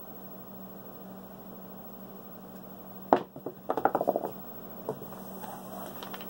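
A pair of craps dice thrown onto a felt-covered craps table: a sharp knock about three seconds in as they land, then a quick clatter of smaller knocks as they bounce and tumble to rest.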